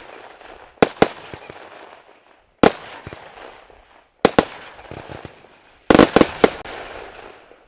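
PT559 Neon consumer firework firing: a series of sharp bangs as its shots launch and burst overhead, each followed by a fading hiss. The bangs come as a pair about a second in, a single one a little later, another pair past the middle, and a quick cluster of four near the end.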